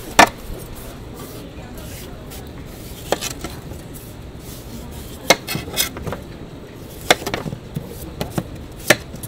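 Large kitchen knife paring the rind off a whole melon, with about half a dozen sharp, irregularly spaced clicks and knocks as the blade and the cut peel meet the tray.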